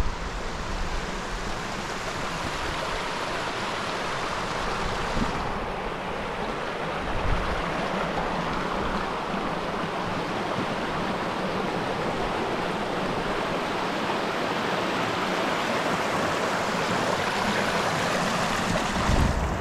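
River water rushing steadily over rock riffles and a small ledge cascade, with a few brief low bumps of wind on the microphone.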